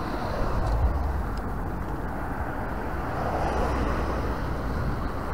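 Road traffic going by: a steady low rumble, with a passing vehicle swelling a little about three seconds in.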